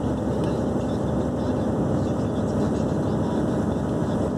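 Tractor-trailer's 420 hp diesel engine running steadily under load, pulling about 31 tonnes, with road noise, heard inside the cab.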